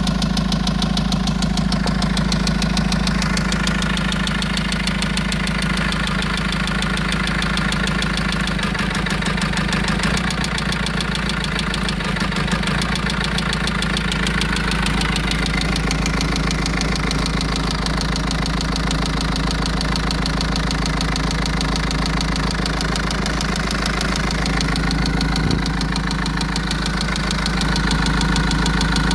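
Vauxhall Vivaro 1.9 diesel engine idling steadily with a fast, even knock, which the owner suspects comes from a faulty injector.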